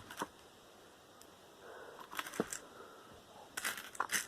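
Loose screws and small metal bits clattering and clinking as they are handled and sorted with a magnet, in three short bursts: near the start, around the middle, and near the end.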